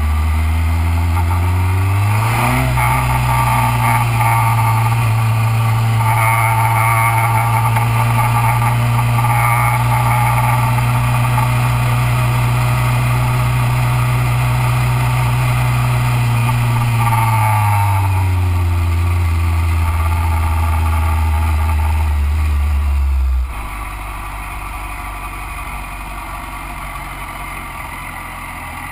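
BMW S1000RR race motorcycle's inline-four engine heard onboard, running steadily. It revs up about two seconds in, holds an even note while riding down the pit lane at pit-lane speed, then drops back after about seventeen seconds. About twenty-three seconds in the engine note cuts out abruptly as the bike waits at the pit exit, leaving quieter background noise.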